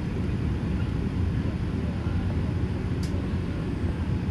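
Steady cabin noise inside a Boeing 787-8 airliner descending on approach: a deep, even rumble of engines and airflow, with a faint high tick about three seconds in.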